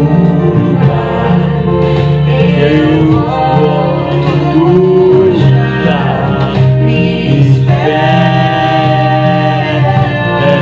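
A song: a voice singing long held notes over steady instrumental accompaniment.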